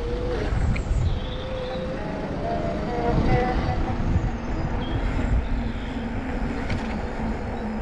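Wind rumbling on the microphone and tyre noise from a bicycle rolling along a street, with a faint steady hum setting in past the middle.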